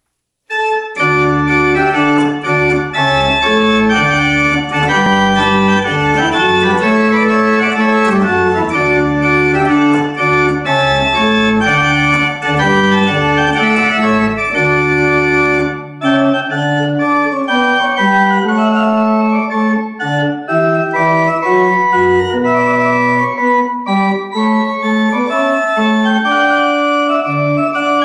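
Pipe organ playing sustained chords, with low pedal bass notes under the first half; about halfway through the pedal bass drops out and the manuals carry on alone.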